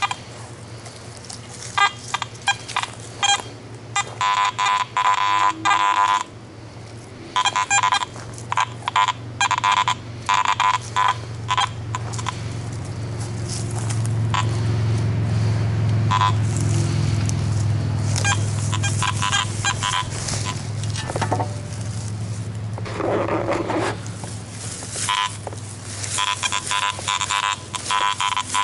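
Garrett AT Gold metal detector giving repeated short, buzzy target tones as the coil is swept over the forest floor, in clusters of rapid beeps. A low steady hum swells up through the middle.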